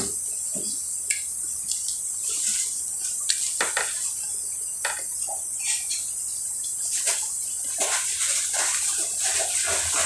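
Wet eating sounds: short lip smacks, finger-licking and squelches as sauce-covered seafood boil is eaten by hand from a plastic container, over a steady hiss.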